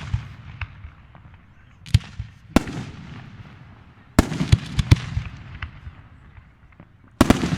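Aerial fireworks bursting: sharp bangs about two, two and a half and four seconds in, and again near the end, each followed by a fading crackle and echo, with smaller pops between.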